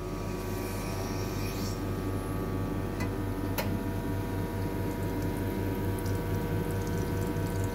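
Espresso machine's pump running with a steady hum while pulling a double shot of espresso, with two faint clicks about three and three and a half seconds in.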